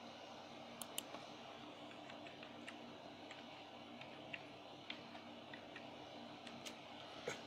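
Faint, irregular light clicks and taps, a few seconds apart and sharpest about a second in and near the end, over a low steady hiss.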